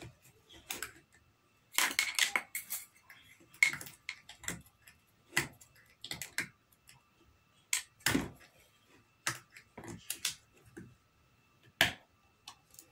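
Scattered, irregularly spaced clicks and knocks of bottles and containers being handled and set down, about a dozen over the stretch.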